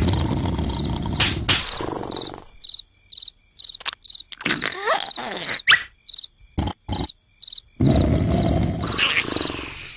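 A person snoring loudly, with one long rasping snore at the start and another beginning about eight seconds in. A cricket chirps in a steady rhythm, about two to three high chirps a second, plainest in the quiet gap between the snores, where a few sharp clicks also fall.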